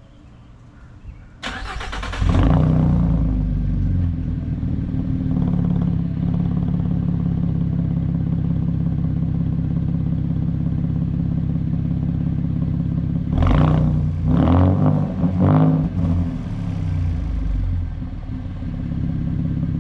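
Ford Mustang S550's 3.7-litre V6 with a muffler delete starting up about a second and a half in, then idling loud and steady. Three quick revs come about two-thirds of the way through before it drops back to idle.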